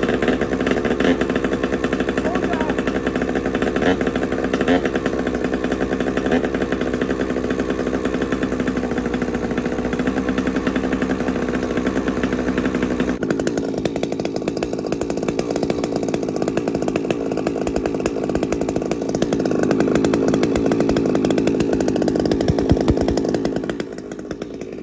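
Two-stroke chainsaw engine running without cutting. About 13 seconds in its sound changes, and it runs louder for a few seconds before dropping off near the end.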